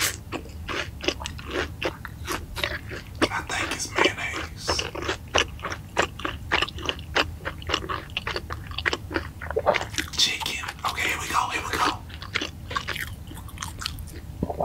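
Close-miked chewing of crispy fried food: a steady run of sharp crunches, several a second.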